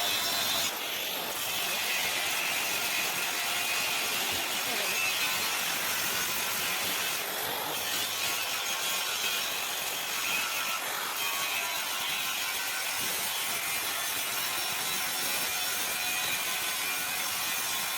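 Steady rasping, hissing noise of metalworking on a steel door fitting, with brief breaks about a second in and twice around the middle.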